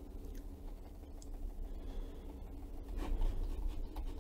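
Quiet room tone: a steady low hum with a few faint clicks.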